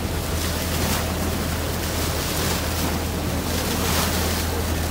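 Boat under way: a steady low engine hum under the rush and splash of water at the bow, with wind buffeting the microphone.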